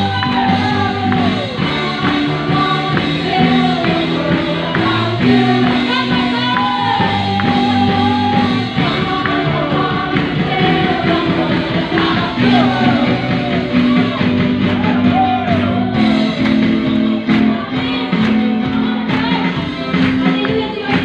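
Live praise-and-worship band playing through PA speakers: a woman sings lead into a microphone over keyboard, electric guitar and bass, with a steady beat.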